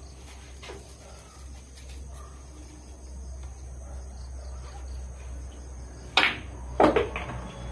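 A pool shot: the cue tip strikes the cue ball, then the cue ball clacks into the object ball about two-thirds of a second later. Two sharp clicks near the end.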